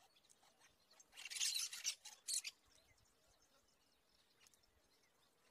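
Cactus parakeets giving a short burst of harsh, scratchy chatter about a second in, lasting about a second and a half, with a few faint clicks around it.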